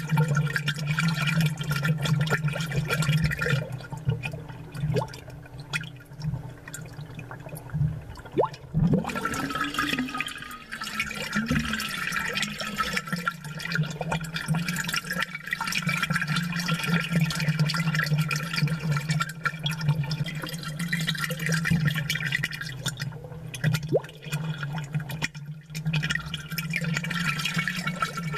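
Aquarium water bubbling and gurgling, amplified, with many small bubble pops and a steady low hum underneath. A brief wavering tone about a third of the way in.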